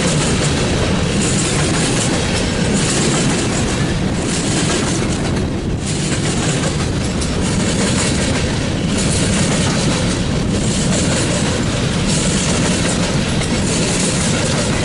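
Norfolk Southern freight train rolling past, its cars' wheels running over the rails in a loud, steady rolling noise that swells and dips as the cars go by.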